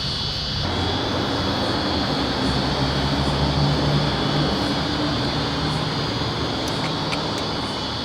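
A passing engine hum that comes in about half a second in, is loudest around the middle and slowly fades, over crickets chirping steadily.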